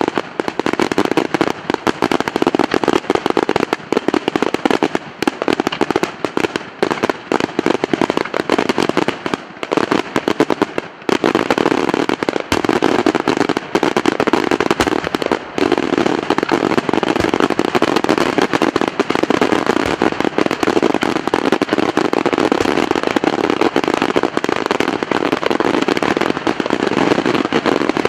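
Daytime fireworks: a dense, continuous barrage of rapid bangs and crackles from many small shells bursting in the sky. It thins out briefly about ten seconds in, then comes back denser and louder.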